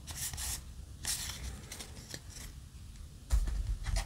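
Yu-Gi-Oh! trading cards being slid and flipped through by hand, giving short, soft swishes. Near the end comes a louder knock and rustle as the cards are put down and a hand reaches into the cardboard booster box.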